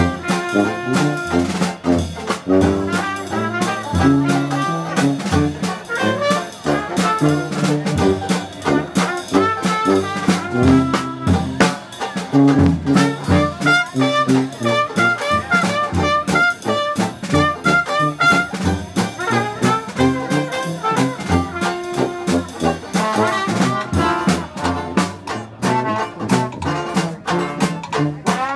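Live Dixieland jazz band playing: trumpet, trombone and tuba over a strummed banjo and drum kit.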